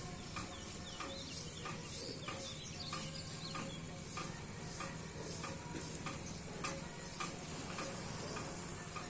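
Small birds chirping, with many short irregular chirps and clicks, over a steady low hum.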